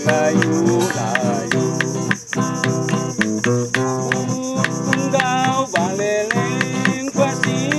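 Background music led by a strummed acoustic guitar, with regular plucked chords and a melody line over them.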